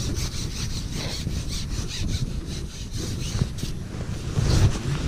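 Carbon match-fishing pole being shipped back by hand, rubbing in quick rhythmic scratchy strokes, with one dull knock near the end.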